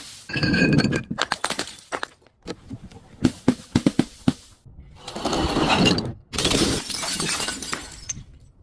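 Glass shattering and crunching as it is crushed: a first break with ringing shards, a run of sharp cracks, then two longer stretches of grinding crunch in the second half.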